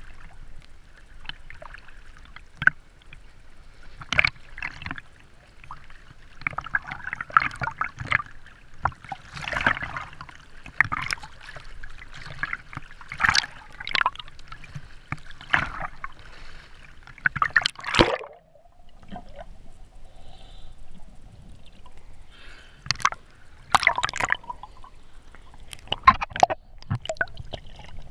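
Sea water splashing and sloshing around a camera bobbing at the surface of the waves as the holder swims, with irregular splashes every second or two and gurgling when the water covers it.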